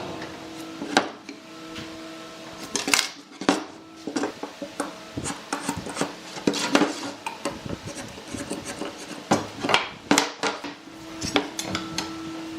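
Irregular sharp clacks and clinks, well over a dozen, of wood pieces and hand tools being handled and set down, over a steady hum.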